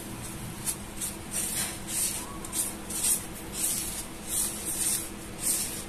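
A hand rubbing and squeezing dry maida flour and semolina in a plastic bowl, working hot oil through it for puri dough. It makes a string of short soft swishes, nearly two a second.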